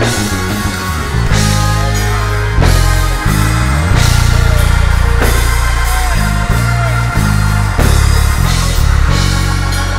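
Loud band music with a steady beat: drum kit hits over a moving bass line, with guitar.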